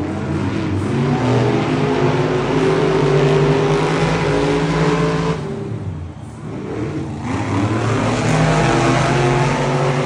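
Monster truck engines, supercharged V8s, revving hard and rising in pitch, easing off briefly about five and a half seconds in, then revving up again.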